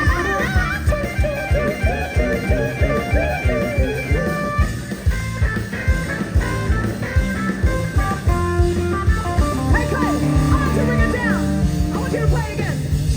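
Live rock band playing an instrumental passage: electric guitar lead with bending notes over bass and a steady drum beat.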